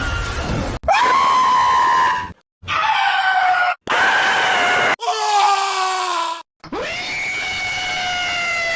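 Screaming sound effects spliced back to back: about five separate held screams in different voices and pitches, each lasting one to two seconds and cut off abruptly before the next begins.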